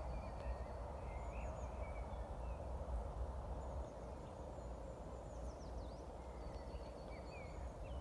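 A chorus of many common toads calling together at their spawning pond: a steady, soft, overlapping croaking from toads paired up to spawn.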